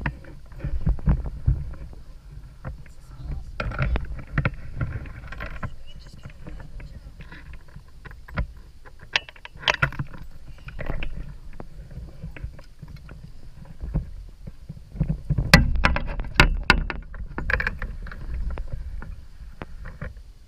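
Irregular knocks, clicks and rattles in a plastic kayak as a small smallmouth bass is reeled in and landed, with rod, tackle and fish bumping the hull. A cluster of sharper clicks comes about three-quarters of the way through.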